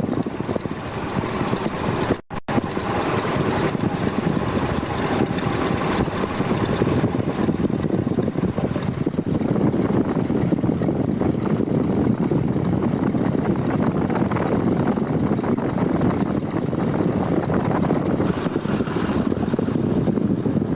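Boeing Stearman biplane's radial engine and propeller running loud, heard from the open cockpit with wind rushing over the microphone, during the takeoff run. The sound cuts out for a split second about two seconds in and grows heavier about halfway through as power comes up.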